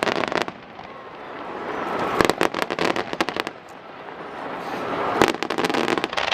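Aerial fireworks bursting: two clusters of sharp bangs and crackles about three seconds apart, each preceded by a swelling hiss.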